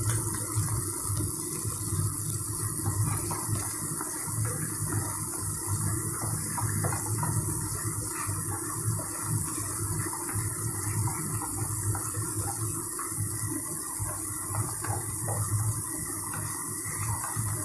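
Diced potato, cauliflower, peas and onion sizzling as they sauté in ghee in a frying pan: a steady hiss with small crackles scattered through it.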